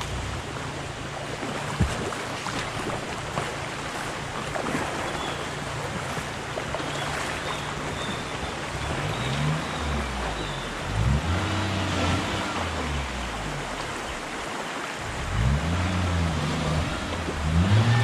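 Flowing river water, with a Maruti Suzuki Omni van's three-cylinder petrol engine running low at first, then revving up and down several times from about halfway through as the van drives into the river crossing.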